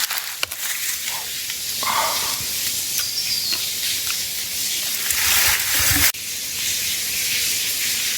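Steady rushing hiss of a waterfall below, with some brief rustling and handling noise over it.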